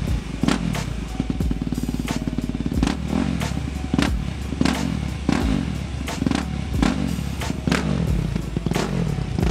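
Yamaha YZ250F's 250cc four-stroke single blipped through quick short revs, rising and falling again and again, through an FMF Powercore 4 titanium silencer with the spark arrestor removed. Music with a beat plays along with it.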